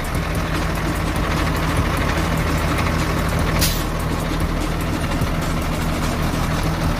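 Fendt Favorit 818 Turboshift tractor's six-cylinder turbo diesel engine idling steadily, with a brief hiss about three and a half seconds in.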